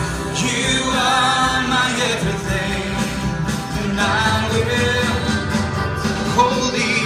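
A live worship band playing a praise song with singing, guitar and drums.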